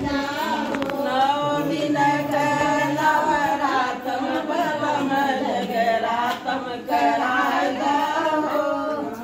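A group of women singing a devotional puja song together, clapping along.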